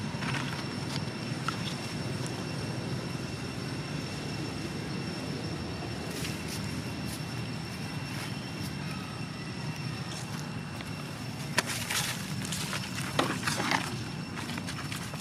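Outdoor ambience: a steady low rumble with two faint, steady high-pitched tones. Scattered crunching and rustling of steps on dry leaves and dirt come near the end.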